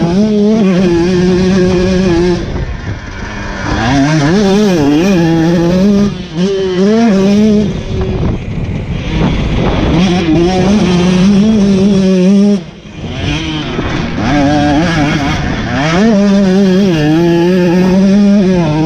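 KTM 125 SX single-cylinder two-stroke dirt bike engine revving hard under riding, its pitch rising and falling with the throttle. The throttle is chopped briefly about two and a half seconds, six seconds and twelve and a half seconds in, each time dropping the pitch and level before the bike revs back up.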